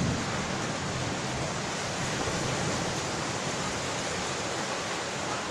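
Strong storm wind and heavy rain around a tornado, a steady, even rushing noise.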